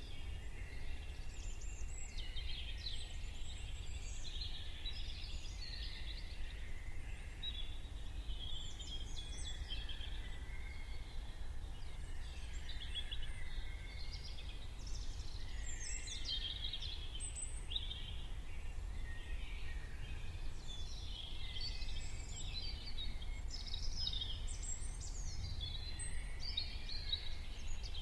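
Morning chorus of several songbirds, with many overlapping chirps, trills and warbles, over a steady low rumble.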